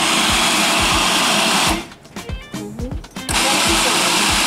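Food processor pulsed twice, its motor and blade grinding soaked chickpeas into falafel mix: one burst of just under two seconds, a pause, then a second burst starting about three seconds in.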